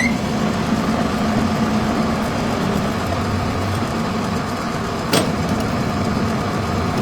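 A machine's motor running steadily with a low hum, with one sharp click about five seconds in.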